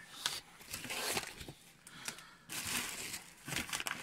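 Brown packing paper and plastic wrap rustling and crinkling as they are pulled back inside a cardboard box, easing off about halfway through, then a fresh burst of crinkling.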